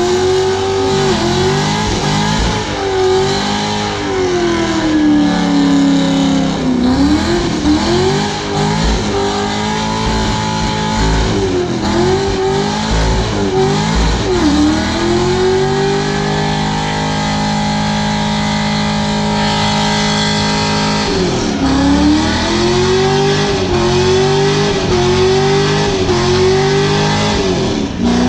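Corvette V8 held at high revs during a burnout, the engine note wavering up and down as the throttle is worked, with a steadier held stretch about two-thirds of the way through, over the constant hiss of spinning rear tires.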